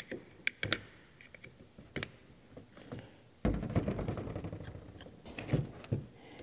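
Knife tip prying plastic shipping inserts from a hydraulic solenoid valve, a few sharp clicks in the first couple of seconds. Then the heavy valve block is picked up and turned over on a workbench, with scraping and knocks.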